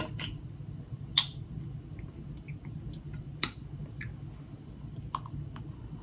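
Close-up mouth sounds of a person chewing king crab meat, with a few sharp smacks and clicks, the loudest about a second in and another midway.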